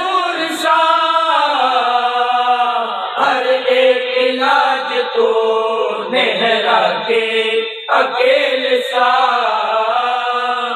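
Unaccompanied men's devotional chanting in Urdu at a milad recitation, in long held melodic lines whose notes bend and slide.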